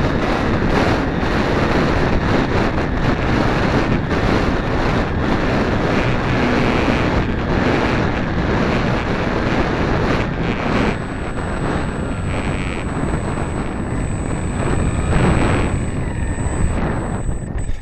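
Wind rushing over a camera riding on a small RC model plane in flight: a loud, steady rush. A thin high whine joins about eleven seconds in.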